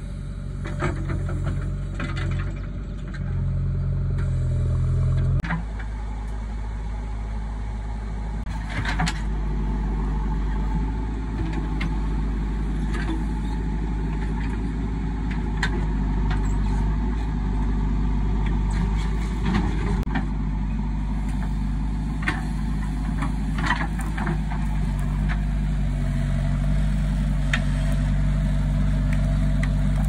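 JCB 3DX backhoe loader's diesel engine running steadily as the backhoe bucket digs into soil, its note dropping about five seconds in. Scattered short knocks and scrapes from the bucket and falling clods of earth.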